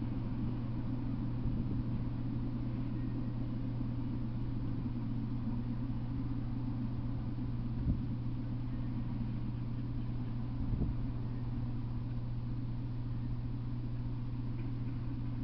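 Steady low hum with a faint hiss over it, unchanging throughout, and a single sharp click about eight seconds in.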